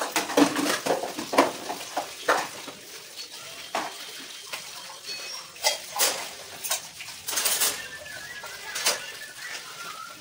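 Metal dishes and utensils clinking and clattering irregularly as they are washed and handled at a kitchen sink.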